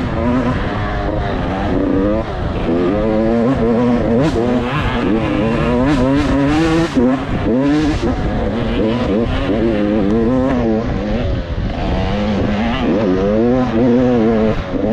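KTM dirt bike engine revving hard and falling off over and over, its pitch rising and dropping every second or so as the throttle is worked during racing.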